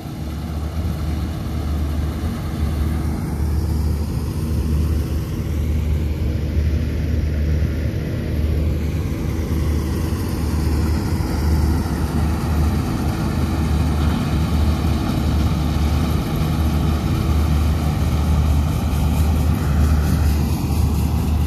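Combine harvester's diesel engine running steadily while it cuts standing paddy, a constant hum over a heavy low rumble.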